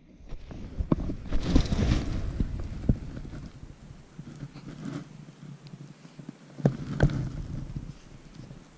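Handling noise: scattered knocks and clicks as fishing gear is moved about on a plastic kayak, over a low rumble that fades out past the middle. Two sharp knocks come close together near the end.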